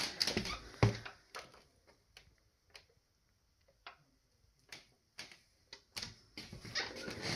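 Scattered light clicks and knocks from someone moving through a carpeted room with a handheld camera: footsteps and handling noise. There is a heavier thump about a second in, sparse single ticks through the middle, and quicker clicks near the end.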